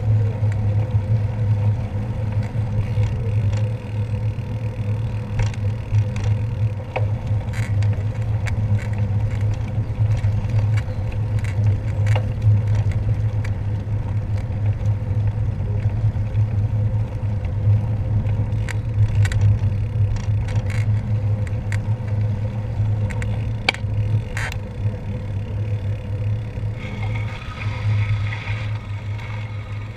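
Steady low rumble of wind buffeting and tyre noise from a bicycle on the move, picked up by a handlebar-mounted camera, with scattered sharp clicks and rattles from the bike going over the road surface.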